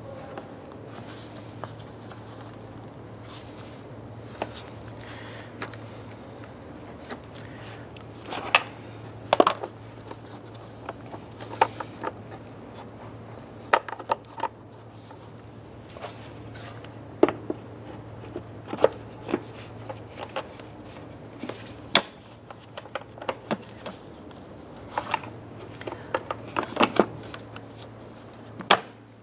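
Plastic knocks, taps and rustling as a panel air filter is seated in a plastic air filter box and the lid is fitted over it, with many sharp clicks scattered throughout, the loudest about nine seconds in.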